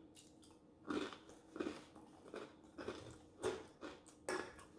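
Close-miked chewing: a person chewing a mouthful of food in steady strokes, about one every two-thirds of a second.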